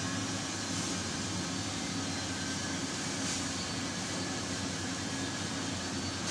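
Steady hum and rush of air from a shop ventilation system, running evenly throughout.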